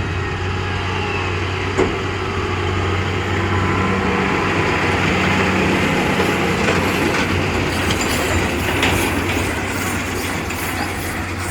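New Holland T7.185 tractor and baler running steadily with a constant low hum, and a sharp clank about two seconds in.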